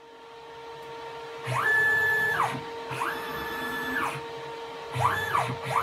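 Stepper motors of a CNC-converted Grizzly G0704 mill driving the axes in rapid moves: a whine that rises in pitch, holds steady, then falls away, three times, over a steady hum.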